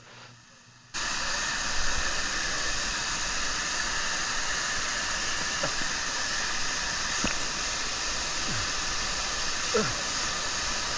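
Steady rush of falling water from a waterfall and its spray sprinklers, cutting in suddenly about a second in, with a few faint voices under it.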